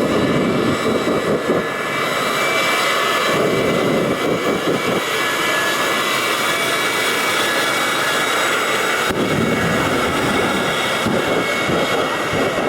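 Jet engine running steadily: a loud roar with a high, even whine that holds its pitch.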